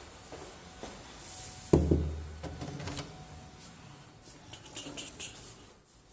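Footsteps, then a single heavy thump about two seconds in as a wooden room door is pushed open, followed a few seconds later by a few light clicks.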